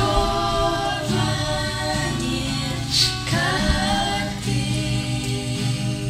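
A family of several voices, children among them, singing a Russian Christian worship song together without accompaniment, holding long drawn-out notes between the lines.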